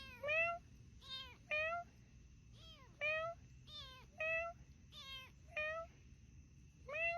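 Cat meowing over and over in short calls, often two in quick succession.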